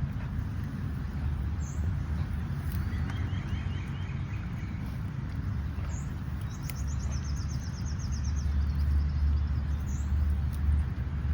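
Small birds calling: short high chirps here and there, a quick run of notes about three seconds in, and a longer rapid trill from about seven to eight and a half seconds in. Under them runs a steady low rumble.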